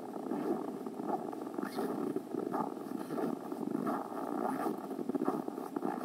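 Footsteps crunching in frozen snow at a walking pace, roughly one to two steps a second, over a steady rustle of clothing and movement.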